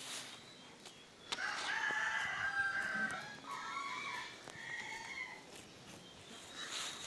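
A rooster crowing once: one long call of about four seconds, in several joined parts, starting a little over a second in.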